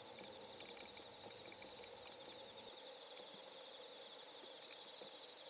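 Faint outdoor nature ambience: a steady high insect drone with rows of rapid, repeated chirping.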